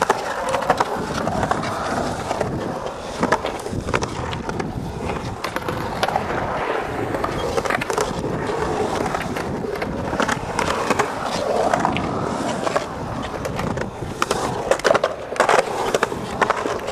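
Skateboard wheels rolling over a concrete bowl, a steady grinding rumble broken by sharp clacks of the board, which come thicker in the last few seconds.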